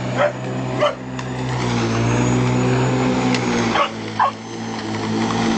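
Boxer puppy barking at a running lawn mower: about four short barks in two pairs, over the mower's steady hum.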